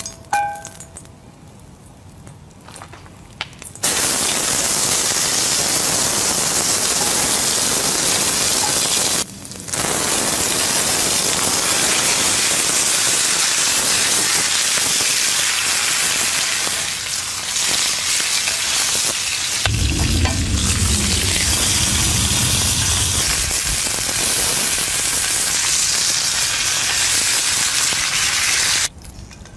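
Steak searing in hot oil in a cast-iron skillet: a loud, steady sizzle that starts about four seconds in after a quieter stretch, with a short break near nine seconds. A low rumble joins it for a couple of seconds around twenty seconds in.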